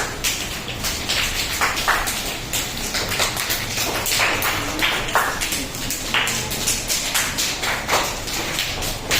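Hands clapping lightly with four fingers against the palm, a dense, irregular patter of soft claps imitating the sound of rainfall.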